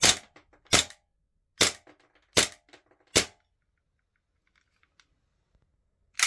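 Blowback airsoft Glock 17 pistol firing five single shots, each a sharp crack with the slide snapping, about three-quarters of a second apart. A few faint ticks follow, then one more sharp clack near the end.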